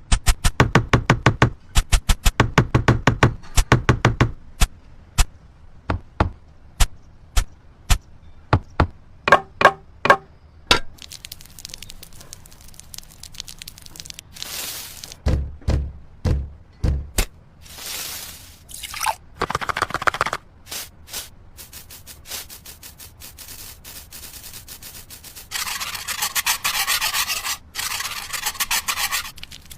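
Miniature brick-and-cement building sounds: many small sharp taps and knocks in quick runs, then scraping and rubbing of small tools through wet mortar, then a steady hiss near the end.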